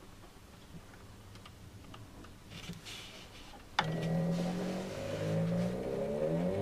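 Light clicks and rustling from a control knob being turned, then a sharp click about two-thirds in as the turntable's stepping motor starts, running with a loud whining hum whose pitch glides up and down as it drives the bridge through a belt.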